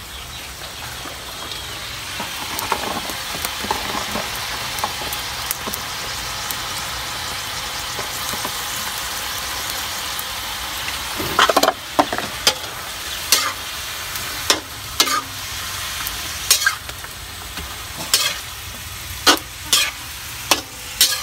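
Sliced cabbage and carrots sizzling in a hot steel wok, a steady hiss. From about halfway through, a cooking utensil scrapes and knocks against the wok at irregular intervals as the vegetables are stir-fried.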